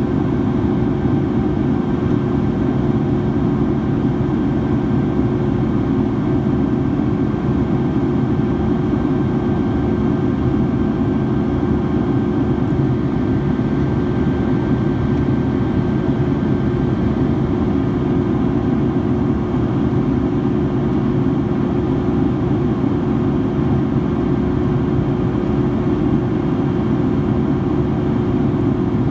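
Steady drone of a Boeing 757-200's jet engines and airflow heard from inside the passenger cabin in flight, heavy and low, with a faint steady whine above it.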